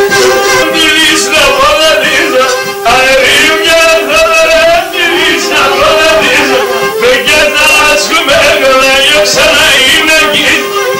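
Live Greek folk dance music: a man singing a winding, ornamented melody over a steady held note from the accompanying instruments.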